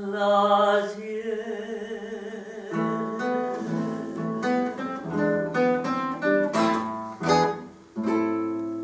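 A woman's voice holds the last sung note of a bolero over a nylon-string classical guitar. The guitar then plays a closing run of plucked notes, strums a couple of chords near the end and lets a final chord ring out.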